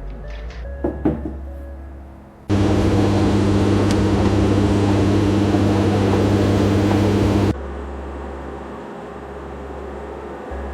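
A machine running with a steady, loud hum that starts suddenly about two and a half seconds in and cuts off abruptly about five seconds later. Light clicks come before it, and a quieter steady noise follows.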